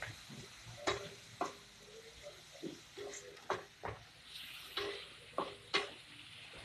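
Ground pork frying in a pan with soy sauce just added. A spatula stirs and knocks against the pan a dozen or so times at an irregular pace, over a faint sizzle.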